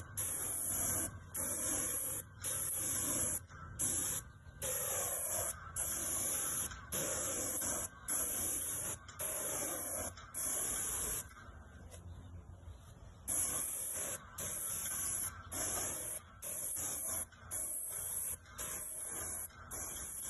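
Airless paint sprayer gun spraying a wooden fence in short hissing bursts, about one a second, as the trigger is pulled and released. There is a pause of about two seconds a little past the middle.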